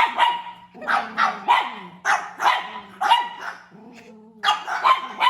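A pug barking repeatedly: about a dozen sharp barks in quick runs of two or three, with a pause of about a second before a last run near the end.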